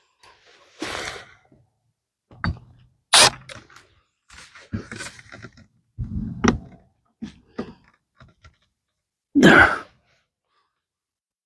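A scattered series of short knocks and clunks, with some brief rustling, during work on a wooden raised-bed hinge. The sharpest knock comes about three seconds in.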